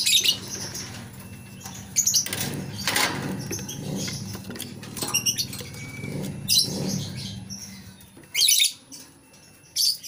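Lovebirds giving short, shrill chirps and fluttering in the cage, over rustling and knocking as the wooden nest box is slid aside and handled. One loud burst comes about eight and a half seconds in.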